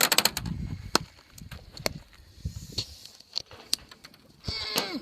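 Sharp clacks of thrown rocks striking, about half a dozen scattered hits. Near the end comes a brief falling squeal.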